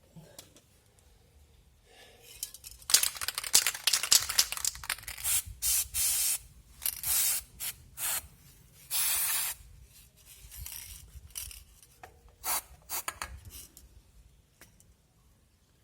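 Aerosol can spraying in several short bursts of about half a second to a second, with rubbing and scraping between them, during drum brake reassembly.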